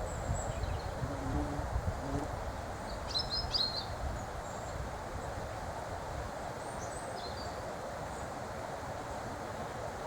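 Small birds giving short, high chirps over a steady outdoor hiss and low wind rumble on the microphone, with a quick flurry of calls about three seconds in and a few more around seven seconds.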